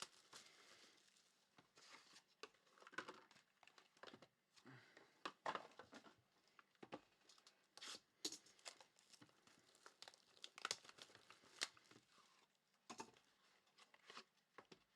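Faint crinkling, tearing and rustling of baseball card pack wrappers and packaging being opened and handled, in scattered short crackles and clicks.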